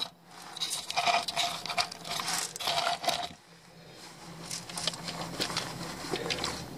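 A metal socket and long wrench clinking and scraping as they are fitted onto a nut under a car. A run of quick small clicks follows in the second half.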